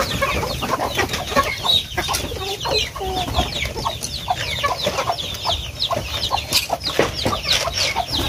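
A flock of chickens clucking as they feed, with chicks giving many short, high, falling peeps throughout.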